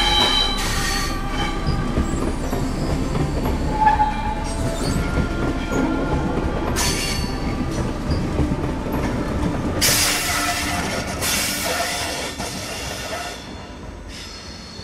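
Passenger train rolling slowly over curved track and points, its wheels squealing with several high, steady tones and a few sharp screeches, loudest around ten to thirteen seconds in. The sound fades over the last two seconds as the locomotive passes.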